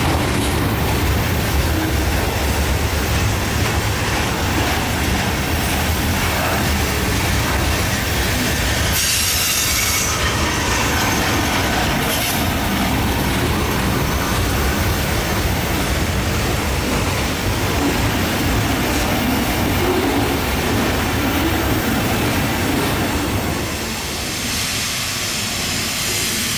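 Freight train cars rolling past close by on a curve, a steady rumble of wheels on rail with clacking, and a high wheel squeal about nine seconds in. The sound eases a little near the end.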